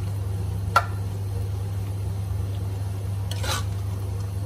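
Metal spoon stirring a coconut-milk curry in a pot. It gives a sharp clink against the pot a little under a second in and a longer scrape around three and a half seconds, over a steady low hum.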